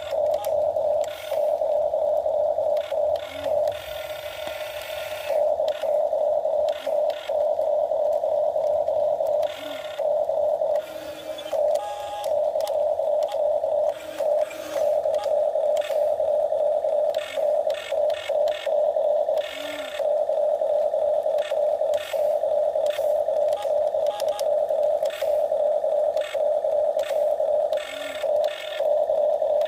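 Electric gear motors of a radio-controlled toy excavator whining at a steady pitch as it digs, cutting out briefly every few seconds when the controls are let go.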